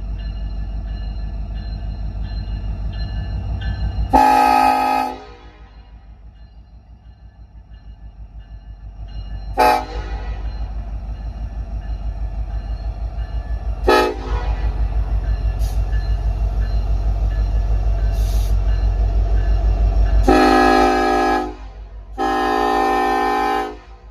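Freight diesel locomotive working in a yard: its engine gives a low, pulsing rumble that swells in the middle, while its multi-note air horn sounds a one-second blast about four seconds in, two brief toots around ten and fourteen seconds, and two longer blasts near the end.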